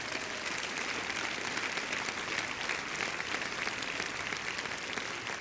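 A large congregation applauding, a steady, dense clatter of many hands clapping.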